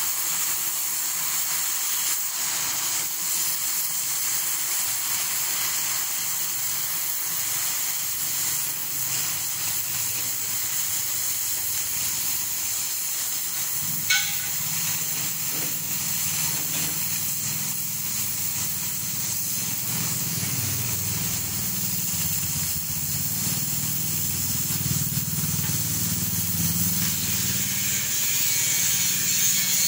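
Oxy-fuel cutting torch on a circle-cutting arm burning through thick steel plate: a steady hiss of gas and cutting oxygen. There is one sharp click about halfway, and a low rumble joins the hiss in the second half.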